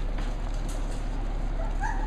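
Steady low hum with faint scuffles, then near the end a couple of short, high, rising squeaks from a Cavalier King Charles spaniel puppy whimpering.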